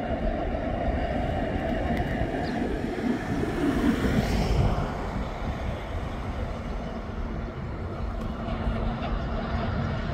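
TasRail TR-class diesel-electric locomotives hauling a freight train, their engines running with a steady low rumble. The sound is loudest about four seconds in, where a tone slides downward.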